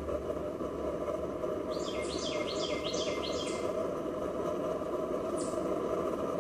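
Steady rushing noise from a vegetable-oil cook stove burning with its air turned up. About two seconds in, a bird sings a quick run of roughly eight descending chirps, and a single chirp follows near the end.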